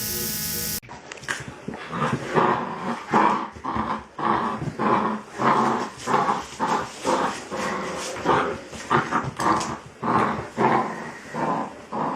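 A dog vocalizing in a long run of short calls, about two a second. Before that, a steady buzz cuts off under a second in.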